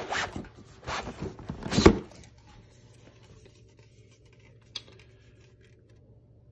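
Cardboard rustling and scraping in several quick strokes as a tall beer can is pulled out of a cardboard advent calendar box, the loudest just before two seconds in. After that, faint room hum with one small click.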